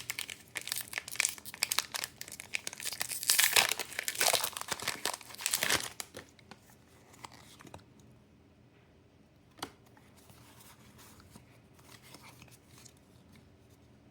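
Foil trading-card booster pack being torn open and crinkled for about six seconds, then quieter handling with an occasional light click.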